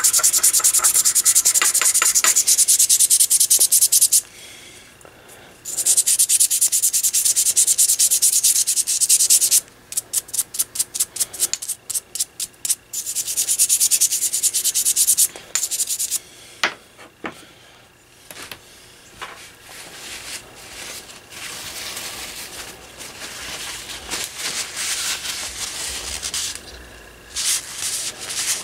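Toothbrush bristles scrubbing Gojo hand cleaner over a Sylvania 6AG7 metal vacuum tube: fast, steady back-and-forth strokes, with a short pause about four seconds in and a run of separate quick strokes around ten to thirteen seconds. From about sixteen seconds on the scrubbing turns softer and more irregular.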